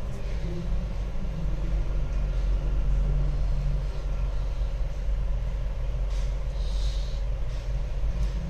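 Steady low background rumble with a faint steady hum, and a faint click about six seconds in.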